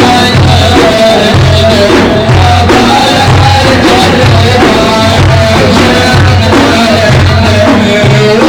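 Instrumental interlude of an Arabic madih (Sufi praise song): a steady, loud drum beat under a wavering melody line, with no voice singing.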